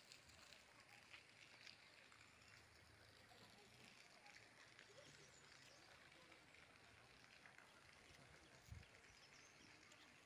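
Near silence: faint outdoor background noise, with one soft low bump about three-quarters of the way in.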